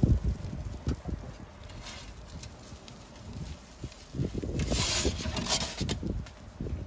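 A perforated metal pizza peel scrapes across the pizza stone as it slides under the pizza and scoops it out, a hissing scrape at about four and a half to five and a half seconds in. Irregular low thumps and rumble run underneath.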